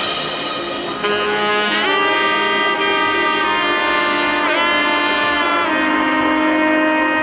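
Background music: a melodic lead line of long held notes, one note bending in pitch about halfway through.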